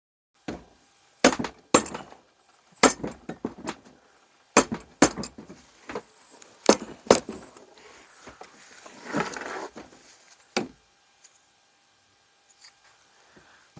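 A mallet knocks repeatedly on the cylinder head of a Lexmoto 125 (Honda CG125-clone) engine to shock it loose from the block: a dozen or so sharp whacks in quick runs, with a scraping rustle about nine seconds in and a last single whack after it. The head stays stuck because its bolts are still in.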